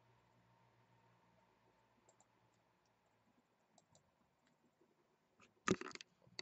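A computer mouse clicking faintly, a couple of paired clicks, then a short burst of much louder clicks and knocks near the end.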